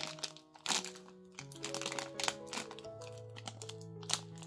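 Clear plastic packaging crinkling and crackling in short bursts as it is handled, over background music of held, gently changing notes.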